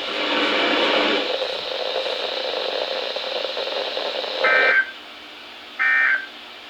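NOAA Weather Radio broadcast hiss, followed by two short, identical warbling data-tone bursts about 4.5 and 6 seconds in. These are the SAME-protocol end-of-message (EOM) codes that close the Required Weekly Test, in a set of three.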